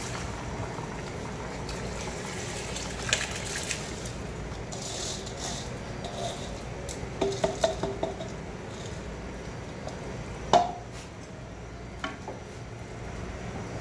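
Soaked rice being tipped and scooped into a metal pot of simmering beef broth, with clinks and scrapes of a utensil against the pot over a steady bubbling, and one sharp knock on the pot about ten seconds in.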